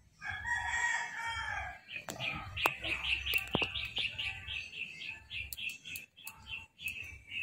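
A rooster crowing once, one long call of about a second and a half. It is followed by a rapid run of high, evenly repeated chirps, about four or five a second, with a few sharp clicks among them.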